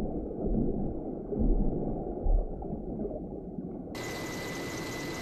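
Deep, swelling low rumble of underwater ambience. About four seconds in it cuts suddenly to a steady hiss with a faint high tone.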